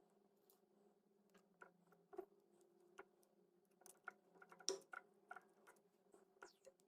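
Near silence: a faint steady low hum with scattered light clicks and ticks, the strongest a little under five seconds in.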